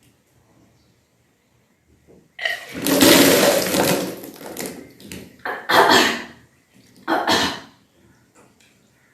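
A person deliberately vomiting up drunk water in kunjal kriya (vaman dhauti), the yogic stomach cleanse: a long gush of water splashing out about two seconds in, then two shorter retching gushes.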